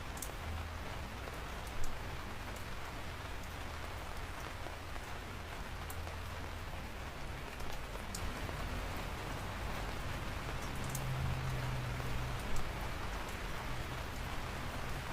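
Steady rain falling, with scattered individual drops ticking over the hiss and a steady low rumble underneath; one louder drop near the end.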